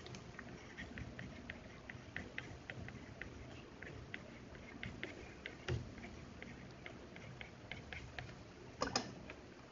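Faint, quick clicks of a stylus tip tapping and dragging on a tablet screen during handwriting, several a second and irregular. There is a soft thump a little past halfway and a brief louder sound near the end.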